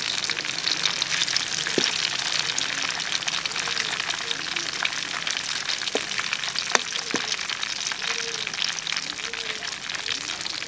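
Chicken pieces sizzling and crackling steadily in hot oil in a steel wok, with a few sharp clicks. The pieces are done after seven minutes a side and are being lifted out.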